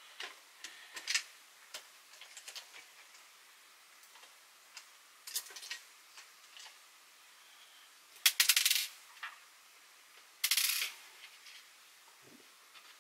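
Small hard clicks and taps of hand tools and parts on a workbench. Two louder metallic rattles come about eight seconds in and again two seconds later.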